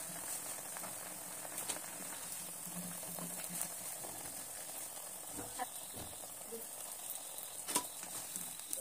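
Semolina cutlets frying in hot oil in a kadai: a steady sizzle, with a few light knocks of a wooden spatula against the pan as the cutlets are lifted out.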